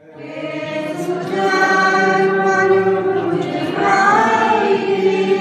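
Voices singing a slow tune with long held notes, fading in at the start and cutting off abruptly at the end.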